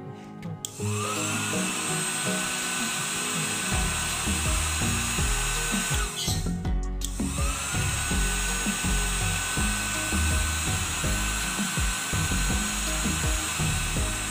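Hair dryer switched on, its fan motor spinning up with a rising whine into a steady blowing hiss. It is switched off about six seconds in and on again a second later, running steadily once more. Background music with a beat plays underneath.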